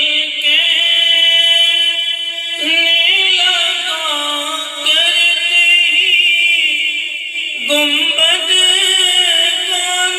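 A man reciting a naat: a solo male voice sung into a microphone, holding long, ornamented, wavering notes, with a new phrase starting twice.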